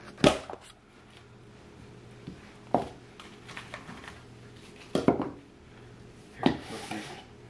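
A slime kit's packaging being handled and opened: four sharp clacks a couple of seconds apart, with a short rustle near the end.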